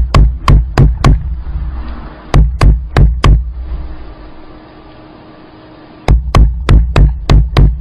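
Rapid, even knocking, about four strikes a second, each with a deep thud. It breaks off twice: briefly after about a second, and for nearly three seconds from about three and a half seconds in.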